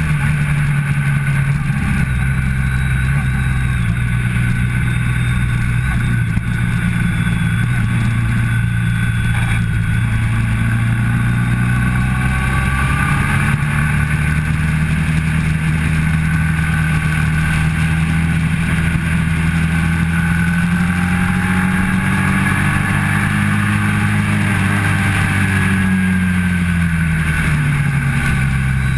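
Motorcycle engine running hard at track speed, with wind rushing past. The engine note holds steady, climbs slowly for several seconds, then drops about two-thirds of the way through as the throttle comes off before settling again.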